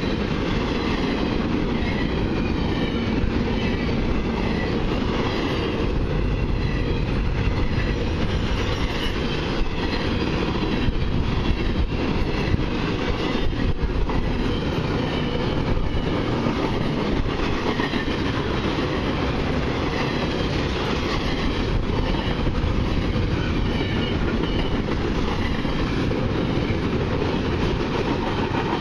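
Canadian Pacific intermodal freight cars rolling past at speed: a steady, loud rumble of steel wheels on the rails with a scatter of clacks from the wheels.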